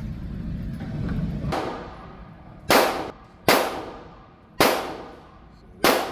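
Handgun firing single shots: a fainter shot about a second and a half in, then four loud shots roughly a second apart, each ringing off briefly.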